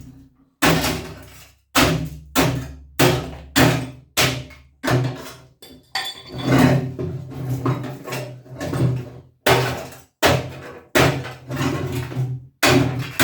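Repeated heavy blows of a hand tool on an old copper tank being broken up for scrap, about one and a half strikes a second, each a metallic thunk with a short ring.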